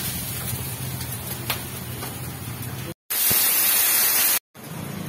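Steady kitchen noise with a low hum, then, after a cut about three seconds in, a loud hiss of water flashing to steam on a hot dosa griddle as it is swept with a bundle of sticks, lasting about a second and a half.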